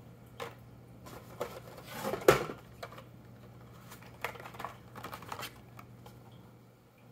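Carded die-cast toy cars in plastic blister packs being handled and shuffled: scattered clicks and rustles of plastic and cardboard, the loudest knock about two seconds in and a run of quick clicks between about four and five and a half seconds.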